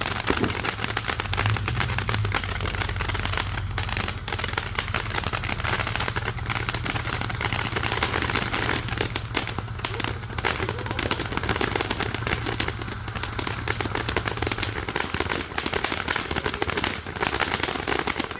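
500-gram Koi Fish firework fountain burning with dense, continuous crackling, and a low rumble underneath that drops away about fifteen seconds in.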